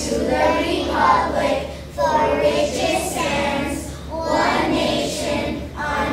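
A group of young children's voices in unison, in phrases broken by short pauses about every two seconds.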